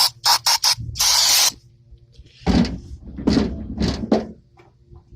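Aerosol parts cleaner sprayed onto starter parts in short hissing bursts: four quick squirts, a longer half-second spray about a second in, then three or four heavier spurts near the middle.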